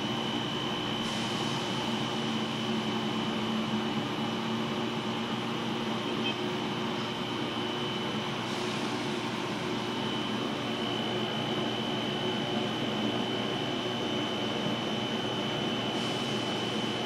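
Steady hum of a ventilation fan running inside a Ferris wheel gondola, with a constant thin high whine over it.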